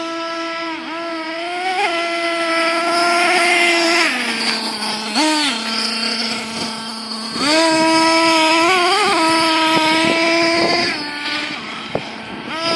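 Small nitro engine of a Thunder Tiger MTA4 S28 RC monster truck, fitted with twin exhausts, running at high revs with a high-pitched buzz. It drops to a lower idle about four seconds in, blips once, revs back up about halfway through with some wavering, and eases off near the end.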